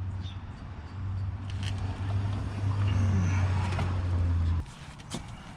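A steady low mechanical hum that grows louder from about a second in, then cuts off suddenly near the end, with a few faint clicks.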